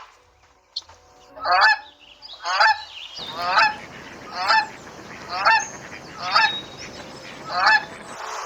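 An animal calling seven times in a row, short pitched calls about once a second.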